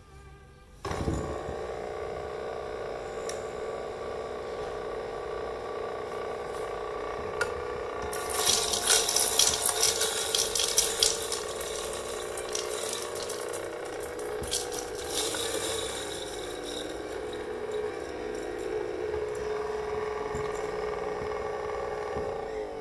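Kuis K-500n electric burr coffee grinder: the motor starts about a second in with a steady hum, and from about eight to sixteen seconds a loud gritty crackling joins it as coffee beans are crushed in the burrs. The motor runs on and winds down at the very end.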